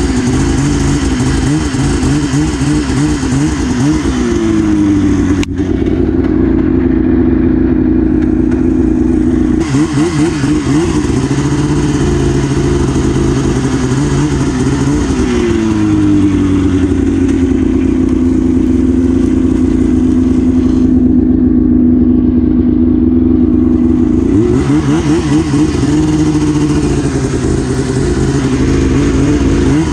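A 2002 Arctic Cat ZR 800 snowmobile's two-stroke twin engine running under way. The revs rise and fall with the throttle and hold steady for several seconds in the middle.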